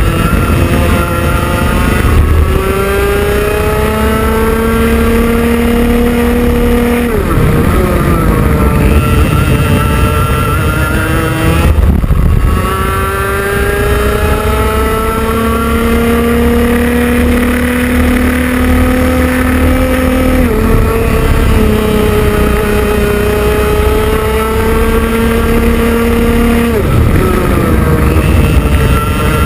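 IAME X30 Junior 125cc two-stroke kart engine at racing speed, its pitch climbing steadily along the straights and dropping sharply each time the kart brakes for a corner, about four times.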